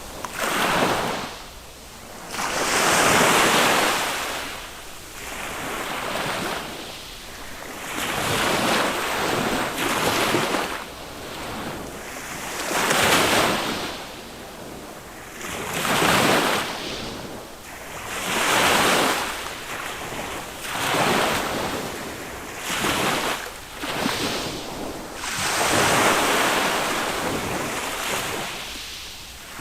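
Small waves breaking and washing up a sandy beach on a calm sea, a surge of rushing surf every two to three seconds that swells and fades, with some wind on the microphone.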